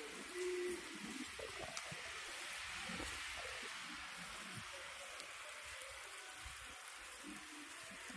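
Outdoor city-street ambience: a steady, even hiss with faint distant voices and a brief tone about half a second in.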